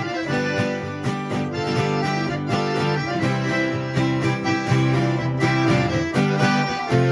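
Instrumental break of a moda caipira between sung verses: plucked strings playing the melody over sustained chords.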